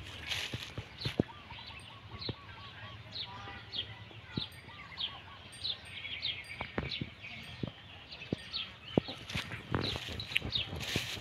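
Footsteps through long grass, the loudest sounds, while a bird calls in a long series of short, falling chirps.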